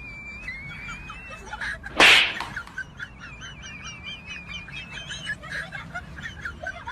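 Birds chirping and warbling without a break, with one loud, short whooshing smack about two seconds in: a hand slapping a person's head.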